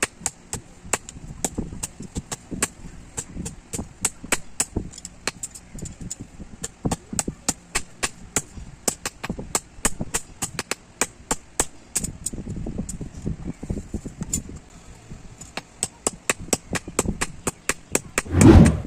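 Hand hammer striking steel on an anvil in a quick, uneven run of sharp blows, about three a second, forging a leaf-spring blank into a small boti blade. A louder, duller thump comes near the end.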